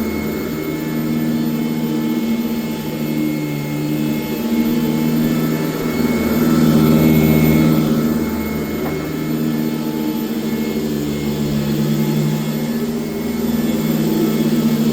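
1996 Sanitaire S663 Type A vacuum cleaner running continuously on carpet, a steady motor hum with airflow hiss. Its pitch and loudness swell and dip every few seconds as it is pushed back and forth.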